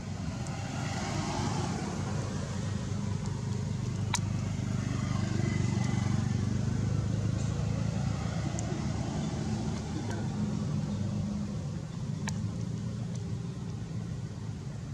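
Steady low motor rumble, like a vehicle engine running, with two sharp clicks, about four seconds in and again about twelve seconds in.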